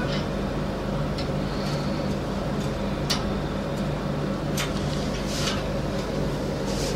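Steady low machine hum, with a few light clicks and knocks about halfway through.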